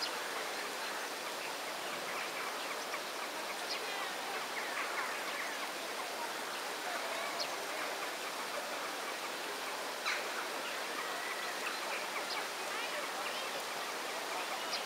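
Steady rushing background noise with faint, scattered bird calls and a few short, sharp ticks spread through.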